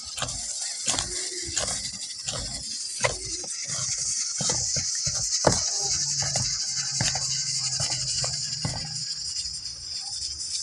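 Hands kneading a large lump of dough in a steel bowl, with soft repeated thumps and squishes, then the rustle of herb leaves being plucked, all over a steady high hiss. A low hum comes in about halfway through and stops near the end.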